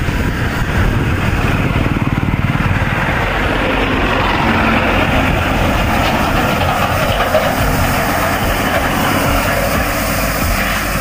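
Farm tractor towing a trailer passing close by, its engine running, over a steady rumble of wind on the microphone while riding.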